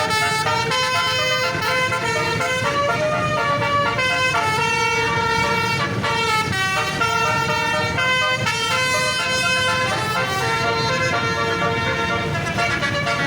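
Bus basuri 'telolet' musical air horn playing a melody, held notes stepping from one pitch to the next every half second or so without a break, over a low rumble.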